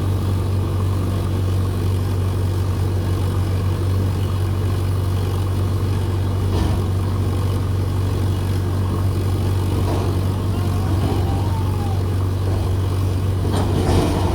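Heavy diesel engine running steadily with a deep, even drone, from the backhoe loader or the tipper truck working at the stuck lorry. A short burst of noise comes about six and a half seconds in, and a louder one near the end.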